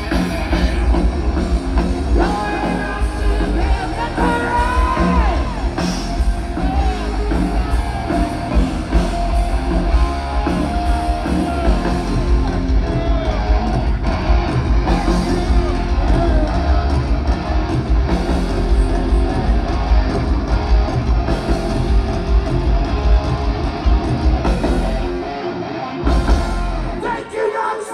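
Live rock band playing: electric guitars, bass guitar and drums with a sung lead vocal. The bass and drums drop out near the end as the song winds down.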